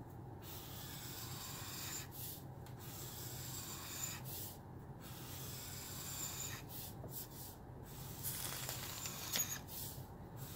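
Caliart alcohol marker's felt tip rubbing and scratching across paper in long strokes of a second or two each, with brief pauses between strokes as the marker lifts.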